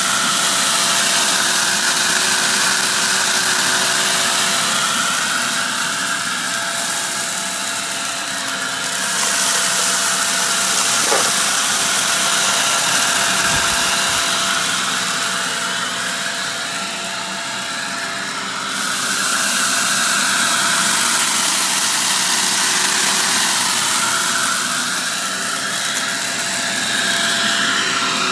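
Shark vacuum cleaner running steadily, its motor hum and suction hiss swelling and easing every few seconds as it is pushed back and forth over fine and crunchy dirt.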